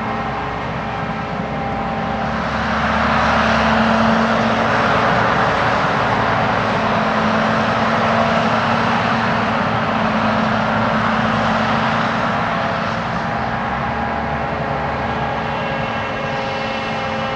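Heavy harvest machinery running: the diesel engines of a forage harvester and tractors at work in a maize field. The machine noise swells loud about two seconds in, as a machine passes close, and eases back near the end.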